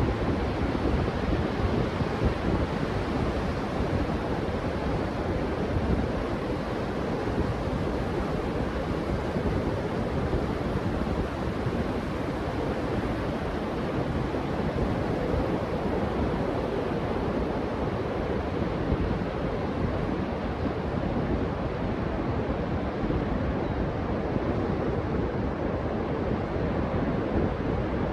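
Ocean surf washing steadily on a beach, with wind noise on the microphone.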